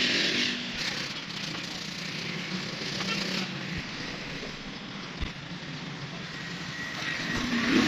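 Steady workshop background noise with a few short knocks.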